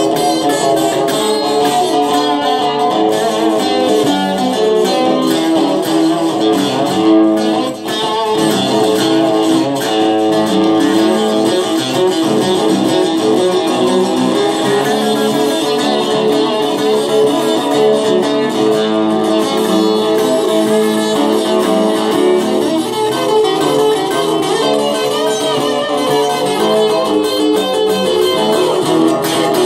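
Acoustic guitar played solo in a basic blues style, picked notes and chords running on without a break.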